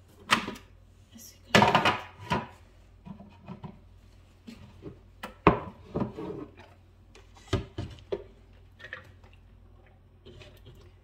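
Food being loaded by hand into a plastic food processor bowl, with a plastic spoon knocking and scraping on a plate: a run of irregular knocks and clatters, the loudest just under two seconds in. The processor's motor is not running.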